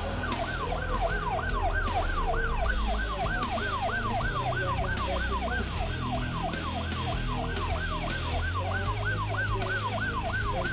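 Emergency vehicle siren in fast yelp mode, a rising-and-falling wail repeating about three times a second, over a steady low hum.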